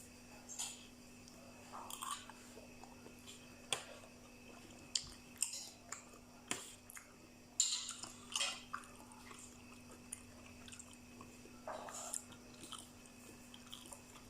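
A person chewing a mouthful of spicy Thai mixed seafood salad with fresh vegetables: irregular wet smacks and clicks of eating close to the microphone.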